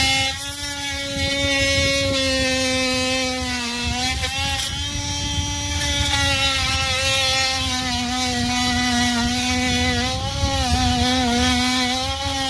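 A motor or small engine running steadily, its pitch dipping slightly now and then.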